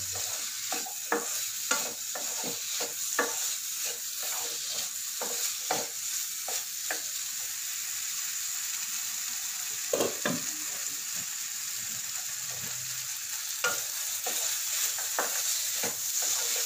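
Chicken and sliced onions sizzling in a nonstick kadai while a wooden spatula stirs and scrapes through them, knocking lightly against the pan. The stirring strokes come quickly, ease off for a few seconds past the middle, then pick up again near the end.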